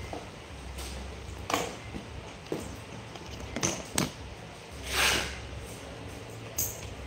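Handling noise from a smartphone held in the hands: a few short knocks and a brief rustle about five seconds in, over a low steady hum.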